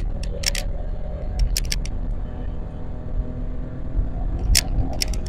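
In-cabin engine and road noise of a Toyota 86 cruising steadily: a low, even rumble from its flat-four with no sharp revving. Several sharp clicks come through, from the microphone rattling on its rear-view mirror mount.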